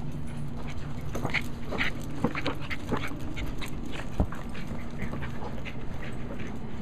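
Small dogs at play giving short, scattered excited whines and yips, with a single dull thud of a basketball being butted by a dog's nose about four seconds in.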